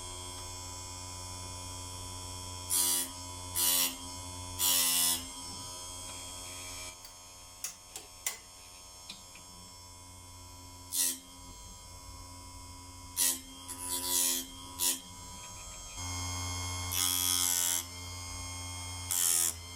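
12-volt electric chainsaw chain sharpener running with a steady motor whine, its grinding wheel touching the chain's cutters in short bursts of grinding, about nine in all. In the middle the motor runs quieter for a while with a few sharp clicks, then comes back louder before the last grinds.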